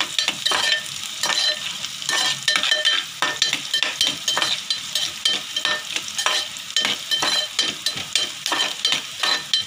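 Sliced pistachios and cashews sizzling as they fry lightly in hot ghee, while a metal slotted spoon stirs them around a metal pot. The spoon scrapes over and over, about two to three strokes a second.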